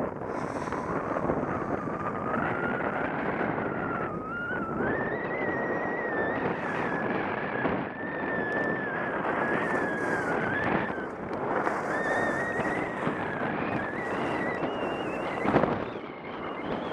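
Snowboard sliding down a groomed run: the board scrapes over packed snow and wind blows on the microphone, with a thin wavering whine over the noise. A sharp knock comes about fifteen seconds in.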